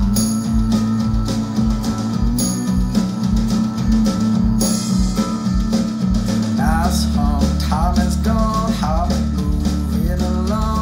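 Rock song with guitar and a steady drum beat; a singing voice comes in about two-thirds of the way through.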